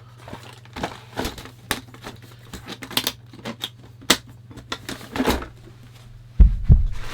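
Rummaging by hand through a container of small hard objects: irregular clicks, rattles and clunks, with a heavy thump about six and a half seconds in, the loudest sound.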